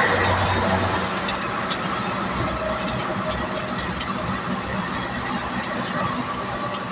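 Steady engine and tyre-on-road noise heard from inside a vehicle's cabin while it cruises along an expressway, with faint scattered ticks.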